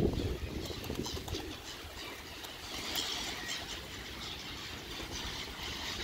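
Pigeons flapping their wings as they fly up to and land on an outstretched hand holding food, a fluttering of wingbeats that is busiest about halfway through.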